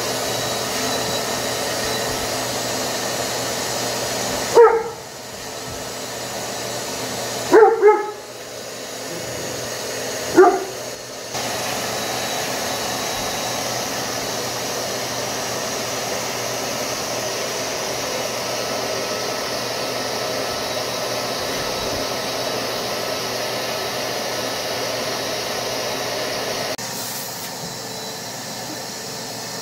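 Shop vac running steadily while a Great Dane barks at it: one bark about four and a half seconds in, two quick barks just before eight seconds, and one more at about ten and a half seconds. The vacuum gets a little quieter near the end.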